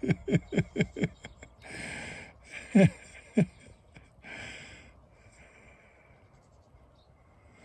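A man laughing in quick chuckles, each falling in pitch, then two wheezy breaths with two more chuckles between them. The laughter then dies away to quiet.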